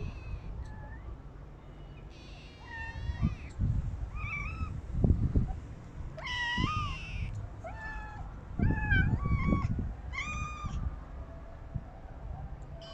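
Street cats meowing for food: a string of short, high meows in quick succession, each bending in pitch, stopping a little before the end. Low rumbling thumps come in between.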